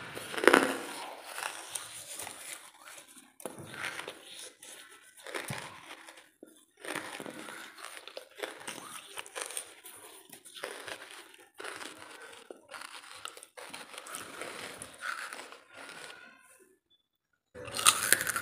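Dry lump charcoal crunching and crackling in irregular bursts, with plastic crinkling mixed in. It drops out for about a second near the end, then starts again louder.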